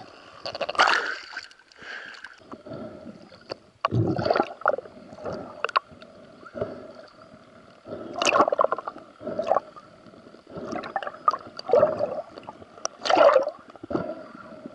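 Water gurgling and bubbling around an underwater camera housing, in irregular loud surges a few seconds apart.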